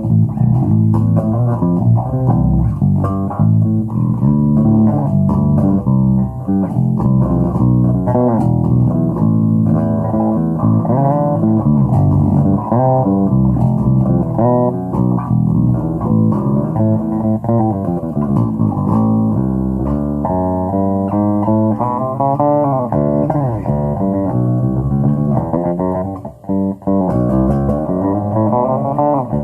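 Electric bass guitar played through a repaired Markbass 112 combo amplifier with a 12-inch speaker and tweeter: a continuous run of plucked notes with some sliding pitches, with a brief drop about 26 seconds in.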